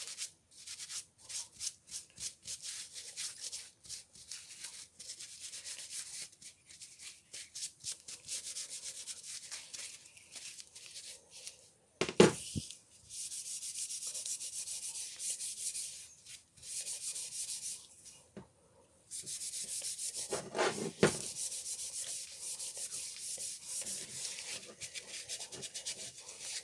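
Cloth rubbing oil over a hammer's steel head and wooden handle in quick back-and-forth strokes. A sharp knock about halfway through, and another about three-quarters of the way through.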